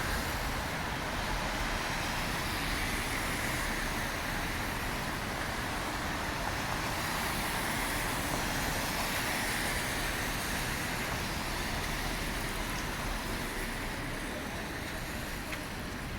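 Steady downtown street traffic passing, tyres hissing on wet, salted pavement in falling snow, with slow swells as cars go by.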